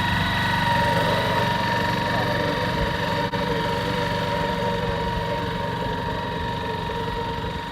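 Small petrol engine running steadily at a constant speed: a low hum with a steady high-pitched whine over it.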